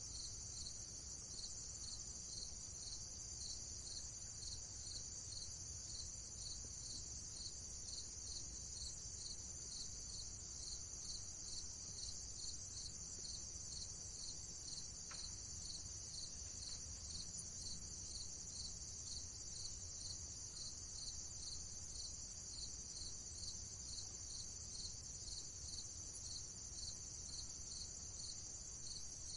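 Crickets chirring in a steady chorus with an even, regular pulse, over a faint low rumble.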